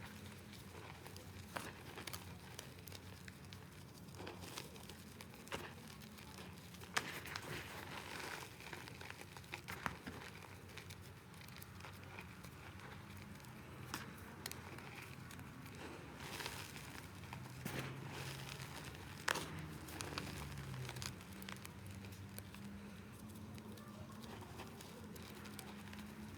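Balls of reformed gym chalk being crushed and crumbled, crunching and crackling with scattered sharp cracks that come thicker about a third of the way in and again past the middle.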